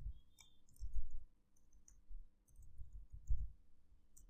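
Typing on a computer keyboard: irregular key clicks with dull low thumps, coming in short runs.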